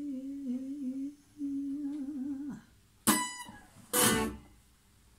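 A long held vocal note with a slight waver, breaking once and falling away about two and a half seconds in, then two strummed chords on a hollow-body electric guitar about a second apart that ring out to end the song.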